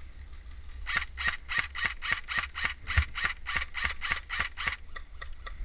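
Airsoft rifle fired in a quick run of about fourteen semi-auto shots, nearly four a second, each a sharp snapping click, with wind rumbling on the microphone.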